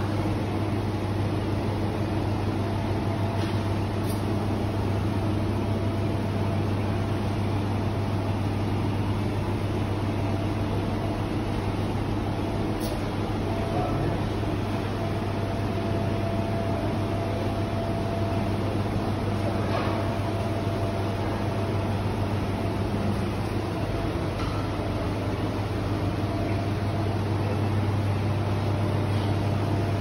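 Steady low mechanical hum over a constant background hiss, unchanging throughout, with a few faint clicks.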